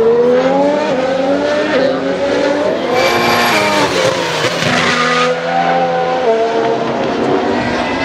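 2017 Formula 1 cars' 1.6-litre turbocharged V6 hybrid engines at full throttle. The pitch climbs and steps down again with each quick upshift as they accelerate. It is loudest about three seconds in, as a car passes close.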